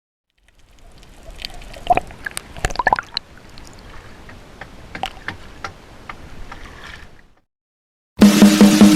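Water splashing and sloshing with scattered sharp knocks and short squeaks, stopping about seven seconds in. After a second of silence, loud electronic music with a steady beat starts near the end.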